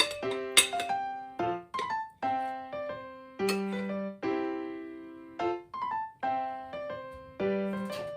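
Background piano music: a gentle melody of single notes and chords that ring and fade. Two sharp clicks sound near the start, about half a second apart.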